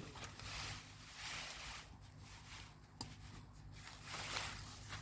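Lightweight ripstop tent fabric rustling in soft swells while the inner tent is clipped in place, with a single sharp click about three seconds in.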